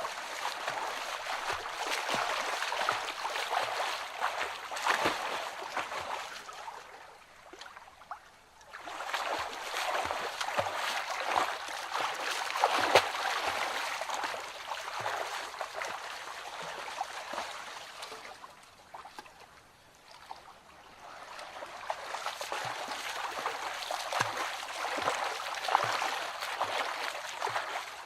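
Water trickling and splashing with many small droplets, swelling and fading away three times.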